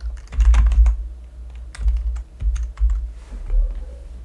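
Computer keyboard typing: quick runs of keystrokes in two bursts, the second starting a little under a second after the first ends, then a few scattered taps.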